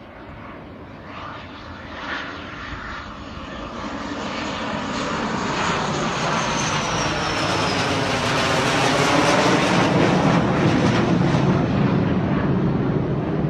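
Delta-wing fighter jet passing low overhead: its engine roar swells steadily to a loud peak about two-thirds of the way through, then begins to ease. A high whine slides down in pitch as it comes over.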